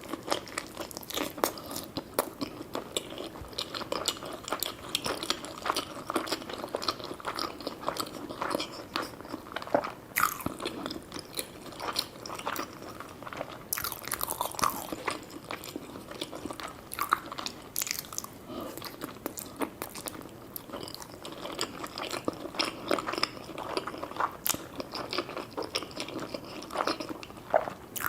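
Close-miked eating sounds: a person chewing and biting food, with many small irregular wet clicks and crunches.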